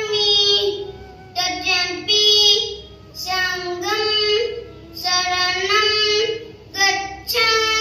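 A child singing a Buddhist prayer chant solo, in short held phrases separated by brief pauses.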